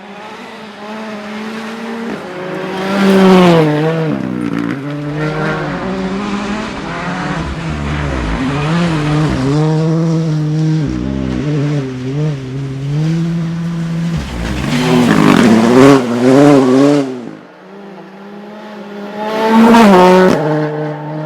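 Hyundai i20 N Rally2 car's 1.6-litre turbocharged four-cylinder engine revving hard and changing gear at rally stage speed. The pitch climbs and drops with each shift, with loud surges a few times as the car goes by.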